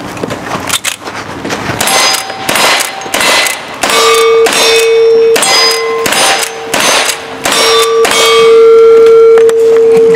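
A rapid string of rifle shots, about two a second, each followed by the clang of a steel plate target being hit and ringing on with a clear tone that lingers.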